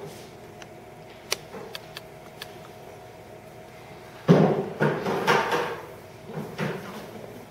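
Props being handled: a few faint clicks, then from about four seconds in a run of louder, irregular knocks and scrapes.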